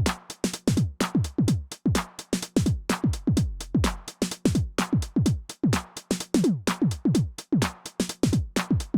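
Behringer RD-9 drum machine, a TR-909-style analog unit, playing a programmed beat: kick drums that drop in pitch, several each second, mixed with bright high percussion hits such as hi-hats and claps.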